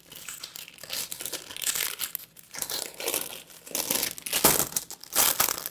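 Plastic bag crinkling and rustling in irregular bursts as a stack of folded quilting fabric is pushed back into it, with the loudest crinkles near the end.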